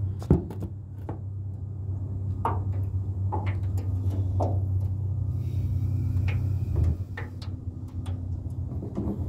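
Scattered knocks and clicks against the metal jon boat, a few of them ringing briefly, over a steady low hum.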